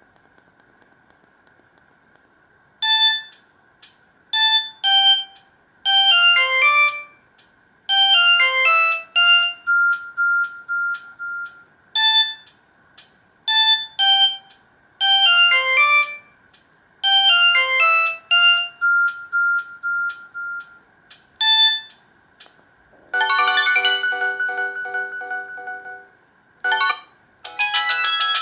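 Samsung GT-E2152 mobile phone playing its built-in ringtones: a bright melody of short beeping notes in repeated phrases, then about 23 seconds in a different ringtone with a held chord that fades, and another one starting near the end. A faint steady high whine runs underneath.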